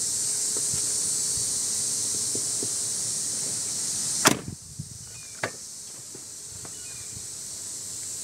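A 2000 Ford Expedition's door shuts with a sharp slam about four seconds in, followed by two lighter clicks of the handle and latch. A steady high hiss runs before the slam and drops off after it.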